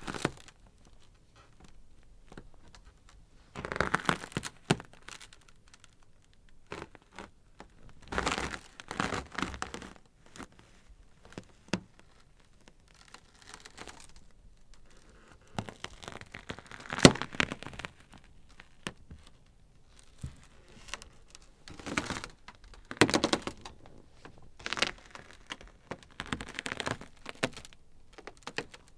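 Ice crackling: irregular clusters of sharp cracks and crackles, a few seconds apart, with quieter spells of faint ticking between them.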